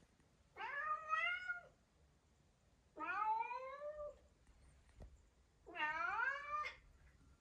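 A cat meowing three times, each meow drawn out for about a second, with a gap of a couple of seconds between them.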